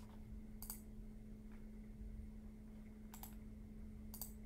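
Three short, faint clicks from a computer mouse or keyboard in use, about a second in, past three seconds and near the end, over a steady low electrical hum.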